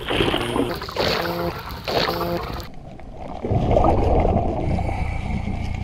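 Underwater scuba breathing: quick rushes of regulator bubbles, each with a low humming tone, about one a second. About two and a half seconds in the hiss drops away, and a louder, duller low rushing noise takes over.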